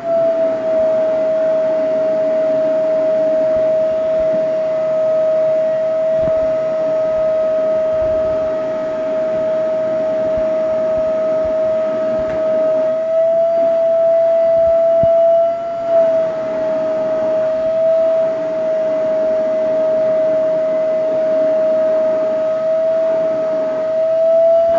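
Vacuum cleaner running with a steady high whine as its hose nozzle is drawn through a cat's fur. The pitch lifts a little for a couple of seconds past the middle, then settles back.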